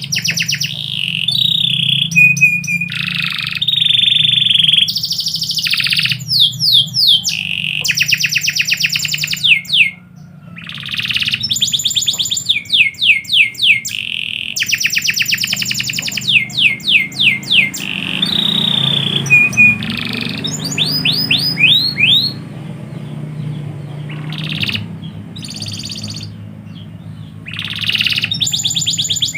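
Canary singing a long, loud song of rapid trills and rolling runs of fast repeated notes, some steady and some sweeping, with a few brief pauses. A steady low hum runs underneath.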